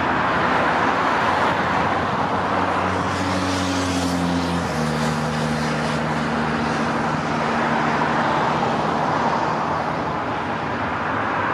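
Emirates Boeing 777 jet engines during landing touchdown and rollout, a steady roar. A low hum joins in partway through and drops in pitch in one step about four and a half seconds in.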